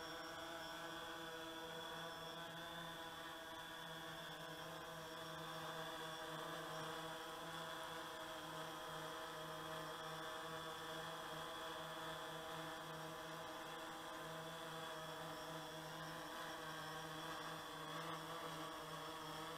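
DJI Phantom 3 Standard quadcopter hovering low and coming down to land, its four propellers giving a steady, many-toned hum whose pitch wavers slightly as the motors adjust.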